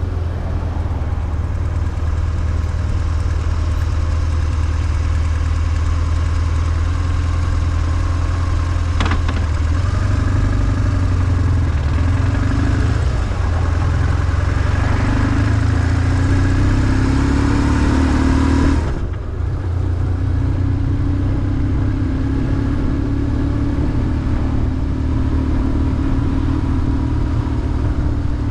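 BMW R1150GS boxer twin engine running at low revs, a steady low note with street traffic around it. A single sharp click about nine seconds in, and the sound briefly dips a little after two-thirds of the way through.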